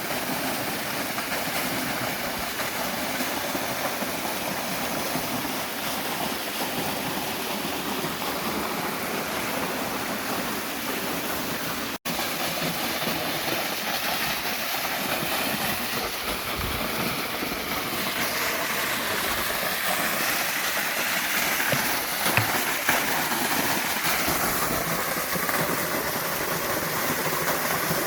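Waterfall: a steady rush of falling water, broken by a momentary dropout about twelve seconds in.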